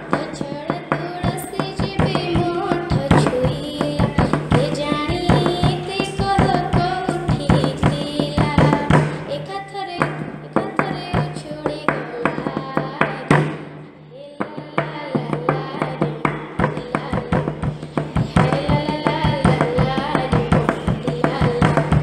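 A girl singing an Odia devotional bhajan to Lord Jagannath over dense drum percussion and a steady low drone. The music drops away briefly about two-thirds of the way through.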